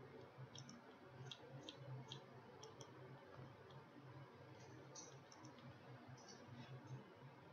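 Near silence with faint computer mouse clicks, about a dozen scattered through, over a low steady hum.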